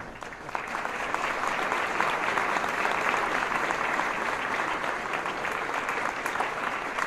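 Audience applauding, a dense, steady clapping that starts about half a second in just after the choir's last chord ends.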